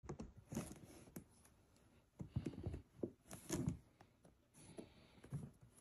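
Faint, irregular scratching, rustling and light clicks of kittens playing in a woven rope basket.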